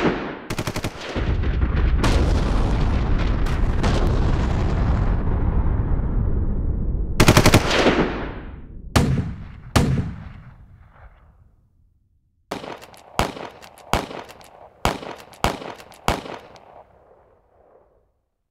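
Gunfire: rapid bursts of automatic fire, then a long rolling rumble, another burst, and a string of single shots about two a second, each dying away in an echo.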